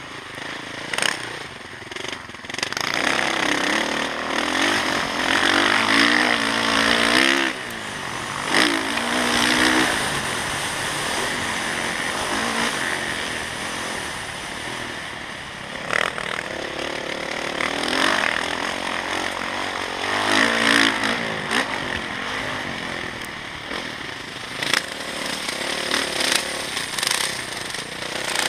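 Dirt bike engine revving up and falling back as the bike rides round a motocross track, its pitch climbing hard twice. Several sharp knocks cut through.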